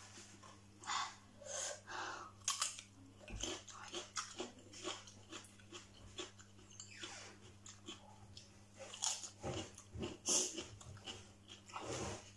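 Close-up eating sounds: chewing and crunching of raw lettuce leaves, with irregular mouth clicks, breathing and sniffing through a runny nose.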